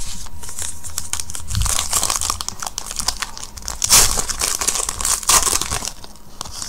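Hands crinkling and tearing open the wrapper of a Panini Gridiron Kings football card pack: a run of dry crackles and rips, loudest about four seconds in and again about five and a half seconds in.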